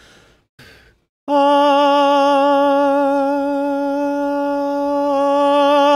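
A male tenor voice sings one held note for about five seconds as a crescendo-decrescendo exercise, starting about a second in. It has a light vibrato and stays at a fairly even loudness under a compressor.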